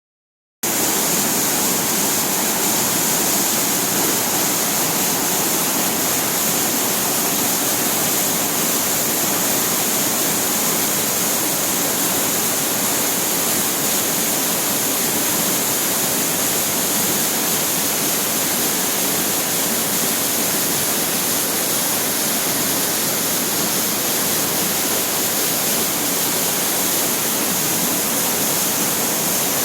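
Waterfall pouring steadily, a loud, even rush of falling water that starts just after half a second in.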